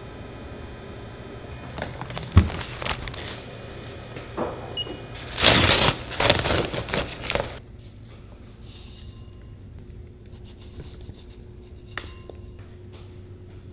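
Kraft paper sack being ripped open along its stitched top: a loud, rough tearing lasting about two seconds, after a sharp knock and some paper rustling. Fainter rustling follows as brown sugar is poured into a steel bowl.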